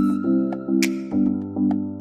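Light instrumental background music with an even pulse of bright note attacks, a little over two a second, over held low notes.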